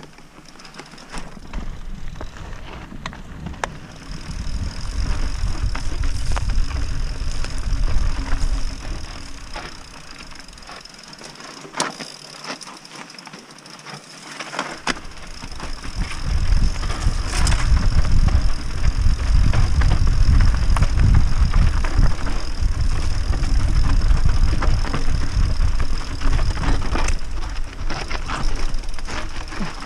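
Wind buffeting the microphone of a camera on a mountain bike descending dirt singletrack, with tyres crunching over dirt and rocks and sharp clicks and rattles from the bike over bumps. The wind rumble eases for a few seconds around the middle, then builds up again.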